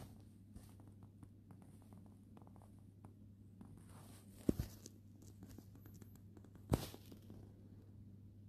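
Quiet room tone with a steady low hum and faint scattered clicks, broken by two short thumps about four and a half and seven seconds in.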